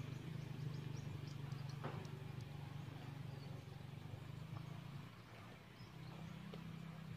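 A steady low mechanical hum, like a small engine or motor running, easing off briefly about five seconds in, with faint scattered high ticks.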